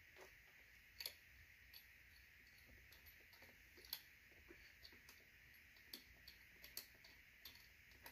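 Faint, irregular small clicks and taps as screws with washers are handled and hand-threaded into the wooden feet of a Spinolution Echo spinning wheel, over a faint steady hiss.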